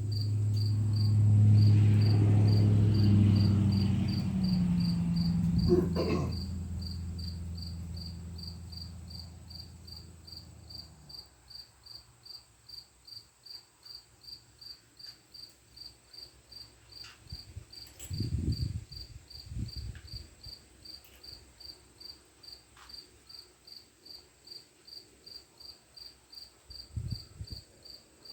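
A machine's motor hums loudly, drops in pitch about four seconds in, and winds down to a stop over the next several seconds. Throughout, a steady cricket-like chirping repeats about two to three times a second, with a sharp click near six seconds and a few dull knocks later on.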